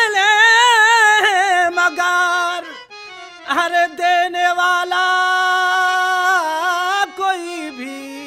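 Male voice singing long, drawn-out notes in nautanki folk-theatre style, wavering and ornamented: two long held notes with a short break about three seconds in, then a lower, softer note near the end.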